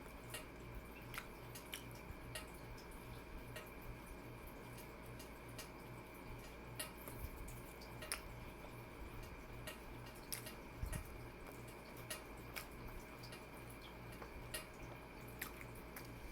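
Faint, irregular wet mouth clicks and smacks of a person chewing food, over a steady hum.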